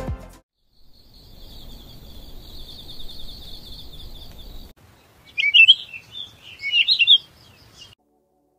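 Night-to-morning sound effect: a steady high trill of crickets that cuts off about five seconds in. Songbirds then chirp, loudest in two bursts.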